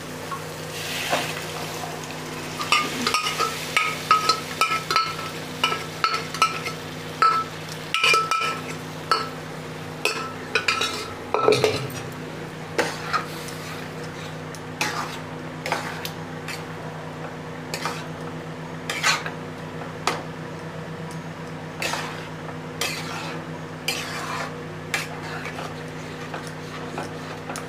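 Boiled chickpeas tipped into a kadhai of fried masala near the start, then a metal spoon stirring and knocking against the kadhai: a quick run of ringing clinks for several seconds, then slower, more spaced clinks and scrapes. A faint sizzle of the masala frying underneath.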